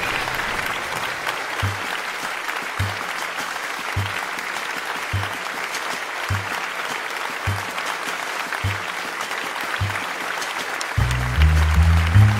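Steady applause under a slow low drum thump about once a second; near the end a bass-heavy music track comes in.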